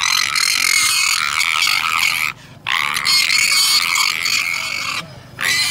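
Small black pig squealing loudly as it is tugged on a rope lead. There are two long squeals of about two seconds each with a short break between, and a third starts near the end.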